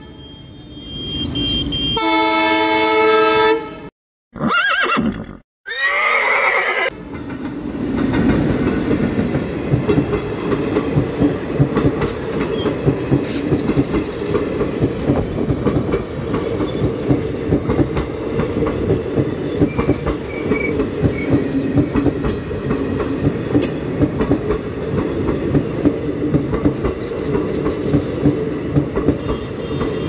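An Indian Railways express train sounds its horn in one blast about two seconds in, followed by a wavering, falling glide. From about seven seconds in, its coaches roll past over the level crossing with a steady rumble and a rhythmic clickety-clack of wheels over the rail joints.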